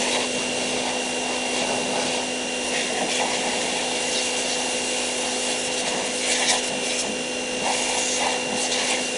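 High-pressure washer running steadily: a constant motor hum under the hiss of the water spray.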